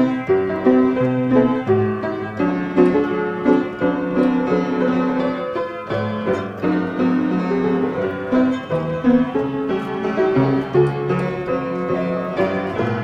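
Piano music: a tune of held notes and chords, played at an unhurried pace.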